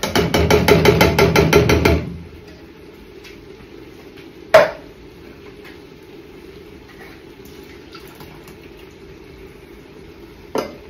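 Tins of coconut milk being emptied into a large stainless steel stockpot: a quick run of strokes, about seven a second, for the first two seconds, then a single sharp knock about halfway through and a lighter knock near the end.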